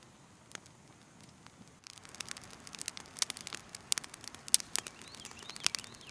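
Small fire of pine straw and sticks crackling: only a few faint snaps at first, then a dense, irregular run of sharp pops and snaps from about two seconds in.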